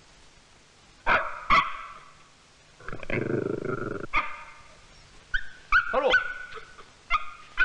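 A dog barking sharply again and again, some of its later calls turning into yelps that fall in pitch.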